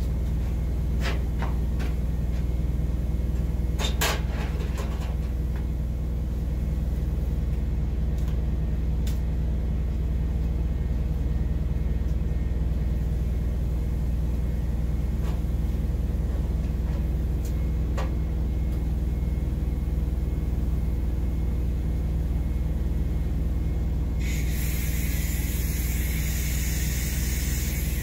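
A machine runs with a steady low hum, with a few light clicks and taps from handling the pipe. About four seconds before the end, a steady high hiss starts: a TIG welding arc on stainless steel pipe.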